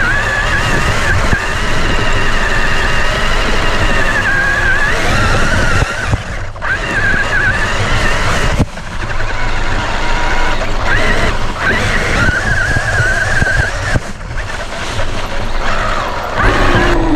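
Traxxas RC truck's electric motor and drivetrain whining, the pitch wavering up and down with the throttle, over tyre and terrain rumble and grit. The sound drops out briefly twice around the middle.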